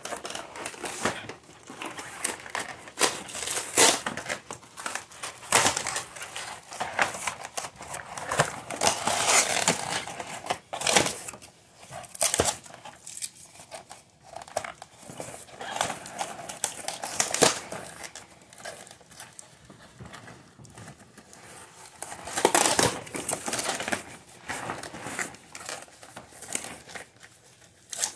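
Cardboard box and its inner cardboard packaging being pulled open and handled: irregular rustling, scraping and crinkling with sharper cracks, louder in spells a few seconds apart.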